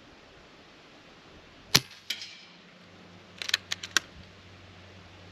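Reximex Pretensis PCP air rifle firing once, a single sharp crack with a quieter knock just after it. About a second and a half later its action is worked in a quick run of metallic clicks, loading the next pellet.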